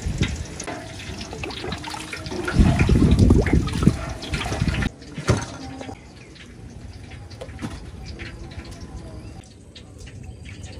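Wood fire crackling under a wok. After a sudden cut about five seconds in, the sound turns to quieter small splashes and drips as green bananas are peeled over a bowl of water.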